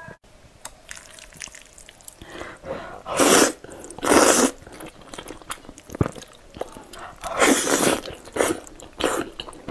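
Noodles in a thick dark sauce slurped into the mouth in three loud rushes: one about three seconds in, another just after four seconds, and a longer one about seven and a half seconds in. Wet chewing and lip smacks come between them.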